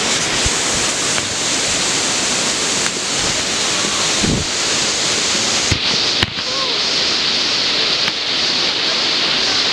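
Steady, loud rushing roar of a large waterfall, Dry Falls on the Cullasaja River, heard from nearby along the trail, with a few faint knocks over it.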